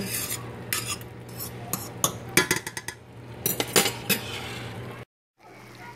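Metal serving fork clinking and scraping against a stainless steel pan while wilted spinach is stirred, in irregular taps and clicks.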